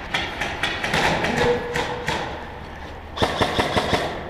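Airsoft guns firing: scattered sharp shots, then a fast burst of about seven shots a second starting about three seconds in.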